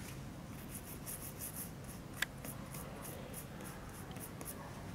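Light, rapid scratching strokes, about five a second, with one sharp click about two seconds in.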